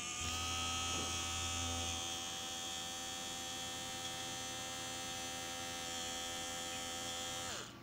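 Small DC motor of a homemade bottle mini blender running unloaded, spinning its three blades in the empty bottle on a test run: a steady high whine that winds down in pitch and stops near the end as the power is cut.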